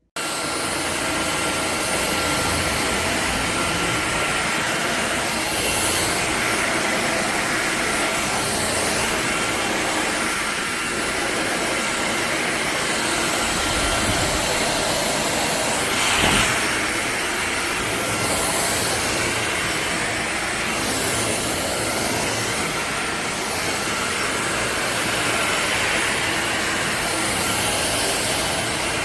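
Cordless stick vacuum cleaner running: a steady motor whine and rush of air, shifting a little as it is moved about, with a single knock about halfway through.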